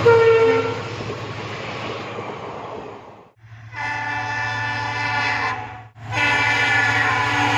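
Train noise fading away, then the WDP-4B diesel locomotive's multi-tone air horn sounding two long blasts of about two seconds each, with a short break between.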